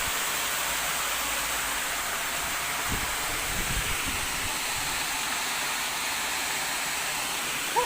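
Steady rush of flowing river water, with a few faint low thumps about three to four seconds in.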